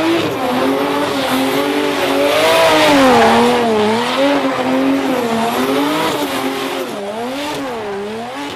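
A car drifting: the engine note wavers up and down under throttle as the tyres screech, fading away toward the end.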